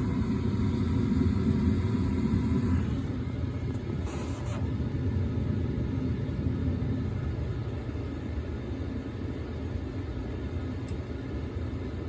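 Bryant gas furnace running with a steady low rumble while it tries to light, and a faint high tone that stops about three seconds in. Its hot surface igniter has failed and does not glow.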